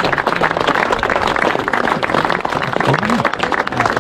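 A group of people applauding with dense, irregular clapping, with voices mixed in.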